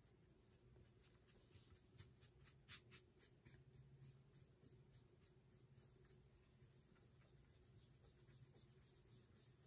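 Near silence: faint scratching and light ticks of a foam sponge brush stroking alcohol ink across a metal tray, over a low steady hum.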